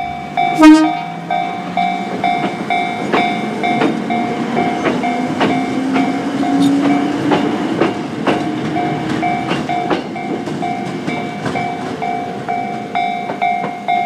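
A Choshi Electric Railway train passing a Japanese level crossing while the crossing alarm rings in steady repeating electronic tones. A short horn blast comes about a second in, then regular clickety-clack of the wheels over rail joints and a motor whine rising in pitch.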